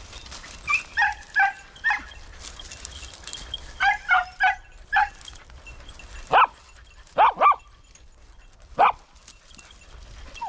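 Podenco hunting dogs barking on a hunt: two quick runs of short barks, then a few single, louder, sharper yelps in the second half. It is the dogs giving tongue while after a rabbit in the scrub.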